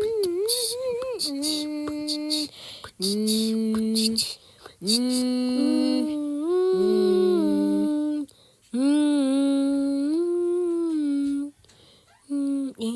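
A voice humming a tune in long held notes that step up and down in pitch, wavering at first, with two notes sounding together at times and short breaks between phrases.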